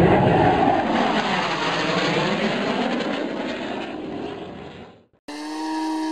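An aircraft engine passing by, its sound sweeping in pitch and slowly fading out over about five seconds. Then, after a short gap, a radio-controlled model aeroplane's motor runs with a steady whine that climbs a little near the end.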